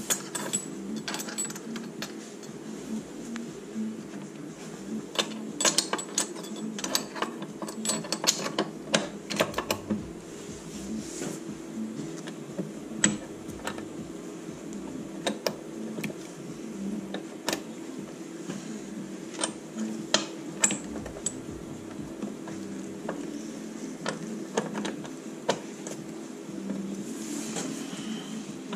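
Small steel engine parts clicking and clinking irregularly as they are handled and seated in an aluminium motorcycle crankcase half during gearbox assembly, over a steady low hum. The clicks come thickest in the first third.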